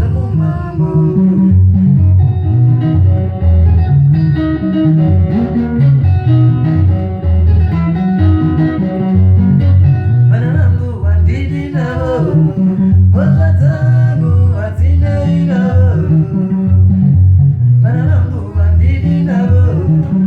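Sungura band playing live: plucked guitars over a pulsing bass guitar line, with a lead vocal coming in about halfway and continuing in phrases.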